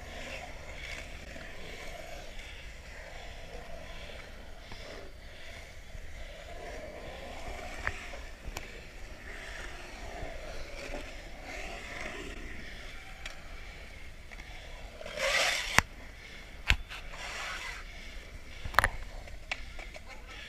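Skateboard wheels rolling and carving around a concrete bowl, with a louder scrape of the board about fifteen seconds in and several sharp clacks of the board scattered through.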